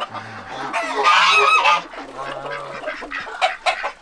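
A flock of domestic geese honking, with repeated calls and the loudest about a second in, and a few sharp clicks near the end.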